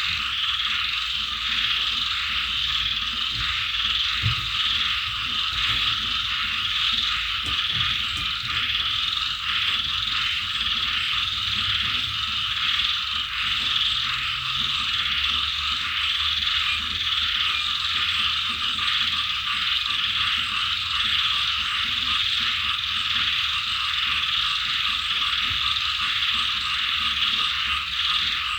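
A dense chorus of frogs calling together: a steady mass of rapid, pulsing croaks with no let-up.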